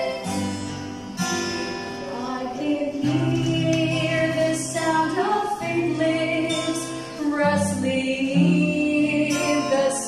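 Women singing a Christian song in long held notes, accompanied by an acoustic guitar.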